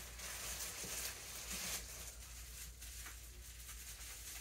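Faint rustling and handling of plastic-wrapped items being lifted out of a cardboard box, over a steady low hum.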